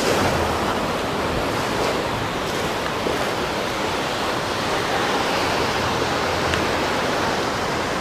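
Steady rushing of sea surf washing on the shore, mixed with wind.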